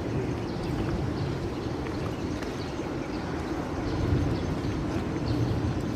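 Footsteps scuffing and stepping down a slope over a steady low rumble of outdoor noise.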